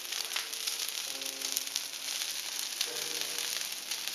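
Bonfire of brushwood and timber burning hard, crackling and hissing with a steady run of sharp pops.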